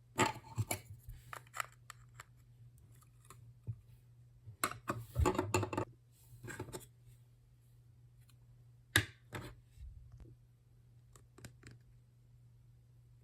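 Blind-box packaging being handled and opened by hand: irregular bursts of crinkling, scratching and sharp clicks, with the busiest bursts at the start, in the middle and about nine seconds in.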